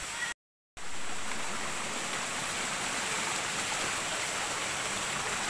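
Steady, even rushing noise like flowing water, broken near the start by a split-second cut to total silence.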